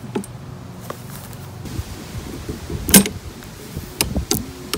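Metal clicks and rattles from a lawn mower's improvised bail-bar linkage (steel strip, bolts and control cable) as the bail bar is worked by hand against the handle. One sharp click about three seconds in is the loudest, with a few lighter clicks near the end.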